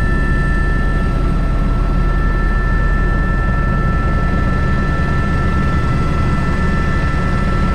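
Airbus H125 (AS350 B3) single-turbine helicopter running steadily in flight, heard from the cockpit: the dense low beat of the rotor under a steady high turbine and gearbox whine.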